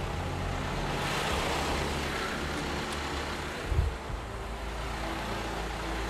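Isuzu NPR truck's engine idling steadily, with a short knock a little past halfway.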